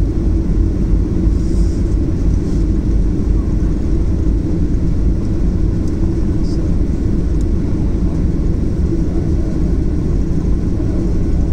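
Cabin noise inside a Boeing 737-800 as it taxis: a steady low rumble from its CFM56-7B engines at taxi power and the rolling airframe.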